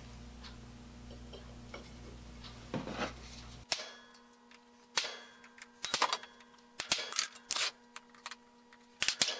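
Sharp metallic taps of a center punch being struck into steel blocks to mark hole centers for drilling, about eight irregular taps in the second half. Before the taps, a faint low hum cuts off suddenly.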